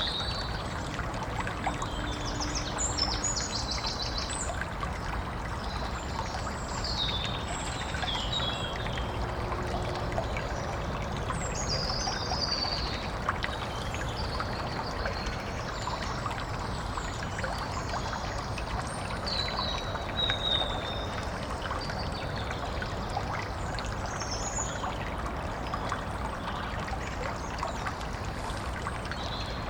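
Woodland stream trickling and splashing steadily, with small birds chirping and trilling now and then over the water.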